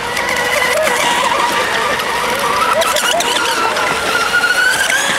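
Radio-controlled mono-hull racing boats running flat out, their motors giving a steady high-pitched whine that wavers in pitch, with one pitch rising near the end, over the hiss of spray.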